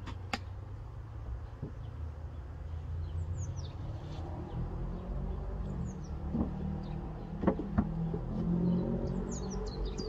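Honeybees buzzing around the hive over a low wind rumble, with birds chirping and a few knocks as the hive roof is lifted and set back in place.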